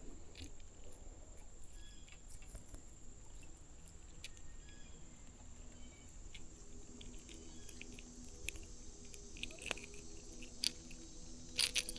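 Faint handling noises, small clicks and light rustles, a few of them louder near the end, as a small smallmouth bass is handled and unhooked. A faint steady low hum sits under them from about halfway through.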